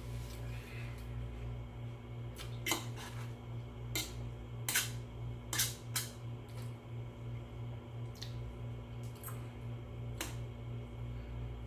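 Eating sounds from a person eating ramen noodles and sausage: a scattering of short, sharp clicks and smacks, about eight in all, the loudest near the middle, over a steady low hum.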